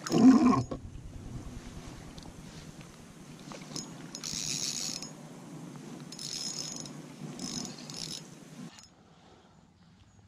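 A spinning reel being cranked to bring in a hooked bass: a steady whir of the reel's gears, growing louder in three spells, stopping sharply near the end. A loud bump at the very start is the loudest sound.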